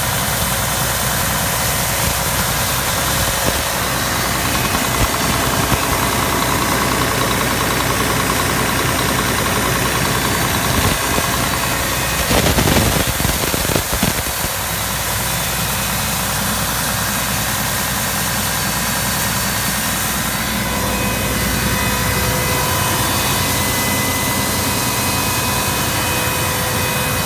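Caterpillar C16 inline-six diesel engine running steadily, with several steady high whining tones over the engine note. About halfway through there is a brief louder noise.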